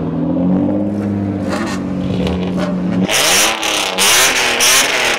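A kaido racer car's engine, exhausting through tall upswept pipes, holds a steady raised idle. About three seconds in it is revved hard in several blips, the pitch swooping up and down with each one.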